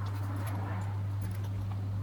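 A steady low electrical-sounding hum, with a few faint light clicks over it.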